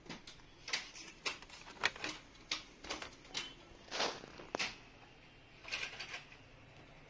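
Handling noise from a laptop's plastic case: about a dozen light clicks and taps at irregular, roughly half-second intervals, stopping shortly before the end.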